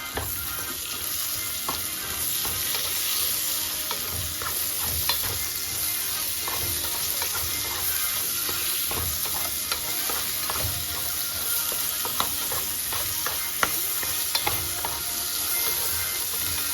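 Green beans sizzling in melted butter in a frying pan, with a utensil scraping and clicking against the pan at irregular intervals as they are stirred and turned.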